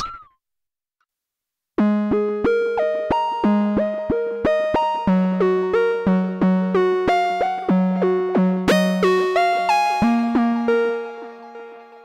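GForce Oberheim OB-X software synthesizer playing its 'Wormy Sequencer' preset: a sequenced pattern of short, plucky synth notes with sharp attacks, about four or five a second, wandering in pitch. It starts about two seconds in and fades out near the end.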